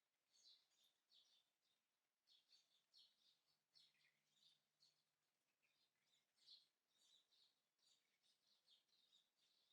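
Faint, high-pitched chirping of small birds: short chirps repeated several times a second, in quick clusters.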